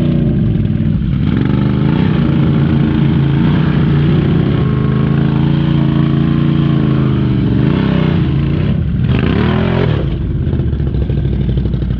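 Can-Am Renegade ATV's V-twin engine revving up and down, close to the microphone, as the machine sits bogged in deep mud and tries to drive out.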